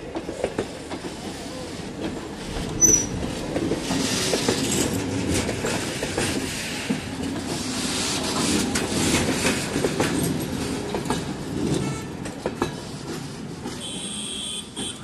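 Goods train wagons rolling past on the rails: a steady rumble of wheels with clicks over the rail joints and a brief high wheel squeal about three seconds in. It grows quieter near the end as the brake van at the tail draws away.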